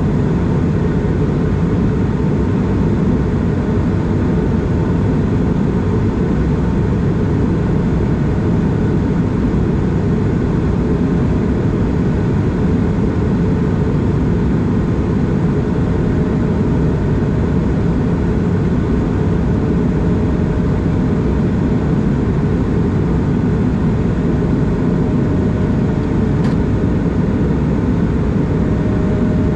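Airbus A220 in flight, heard inside the cabin over the wing: its Pratt & Whitney PW1500G geared turbofan engines and the airflow make a steady, loud, deep rush, with a few faint even hums in it.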